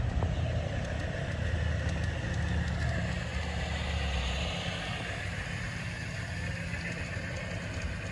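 G-scale garden train running on outdoor track: a steady motor hum and wheel noise, with the low hum dropping away a little after halfway as the train moves off.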